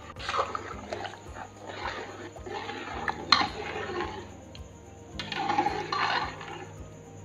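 A metal spoon stirring a large pot of boiling broth: liquid sloshing and the spoon scraping, with a sharp clink against the pot about three seconds in.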